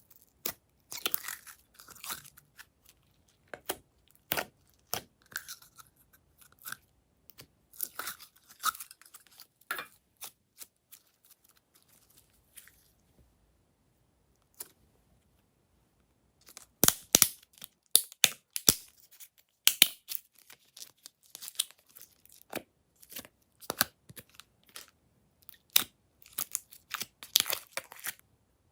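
Glossy slime being squeezed and stretched by hand, giving irregular sharp clicks and pops. The clicking pauses for a few seconds in the middle, then comes back denser.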